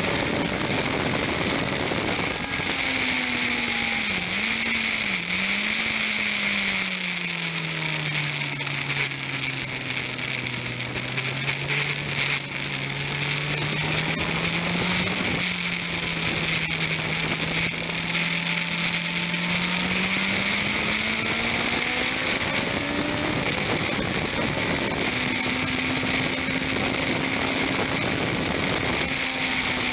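Sports motorcycle engine from an onboard camera with heavy wind rush. The engine note falls as the bike slows, with two quick dips a few seconds in as it shifts down, then climbs steadily as it accelerates, dropping back at an upshift near the end.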